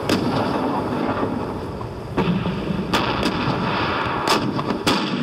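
Cannon fire: about five sharp shots, two close together near the middle and two near the end, over a continuous din of battle noise.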